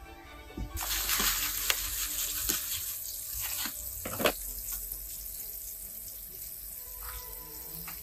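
Breaded chicken cutlets sizzling as they fry in oil in a pan, the sizzle starting suddenly about a second in and easing after a couple of seconds, over soft background music. A few sharp knocks and clicks, the loudest about four seconds in.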